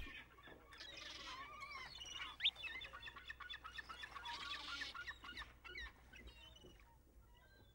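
Shorebirds calling faintly, with many short chirps and piping notes that rise and fall, including one clear rising whistle about two and a half seconds in. The calls thin out over the last couple of seconds.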